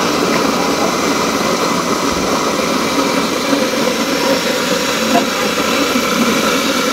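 Small motorised grain mill running steadily, grinding yellow beans into a coarse meal.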